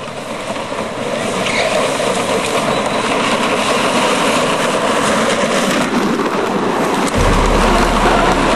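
Hard plastic wheels of big wheel tricycles rolling fast down an asphalt hill, a rough grinding rumble that grows louder over the first couple of seconds as the riders close in. A deeper rumble joins about seven seconds in.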